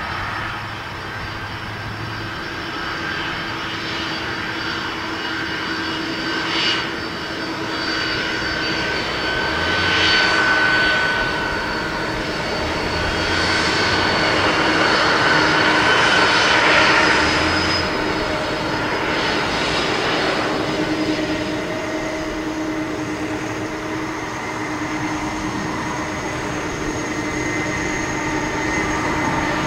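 Boeing 767-300ER jet engines running with a steady whine of several tones over a rushing noise. The sound swells louder through the middle stretch, from about ten to seventeen seconds in, then eases.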